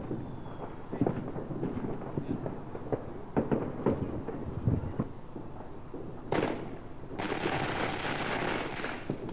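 Fireworks going off: scattered bangs and crackles, then a hiss about six seconds in and a longer hiss of about two seconds near the end.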